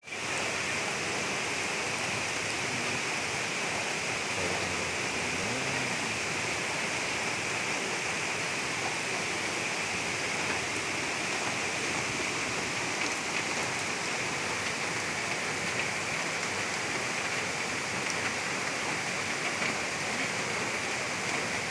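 Floodwater rushing steadily.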